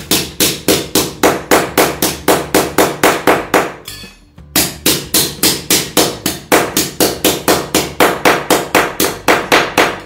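Hammer flattening the end of a steel rectangular tube on a concrete floor: fast, even metal-on-metal blows, about four a second, with a short pause about four seconds in.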